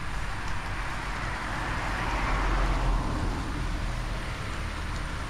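A road vehicle passing by, its tyre and engine noise swelling to a peak about two to three seconds in and then fading.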